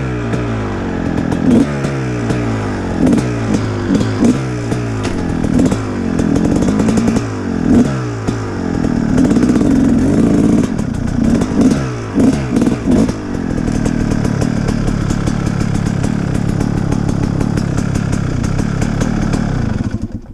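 Dirt bike engine close to the microphone, revving up and down over and over while riding, then settling into a steady idle for the last several seconds before cutting off suddenly near the end.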